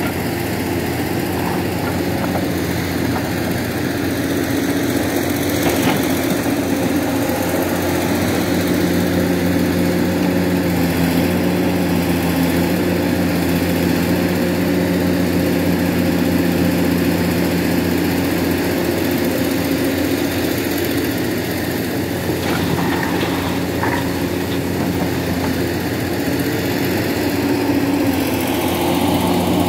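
Heavy diesel engine running steadily at a constant speed.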